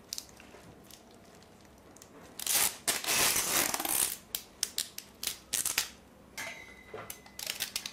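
Adhesive tape being pulled off its roll and wrapped around a cast: a long, loud ripping unspool about two and a half seconds in, then a run of short rips and crackles as more tape is pulled off.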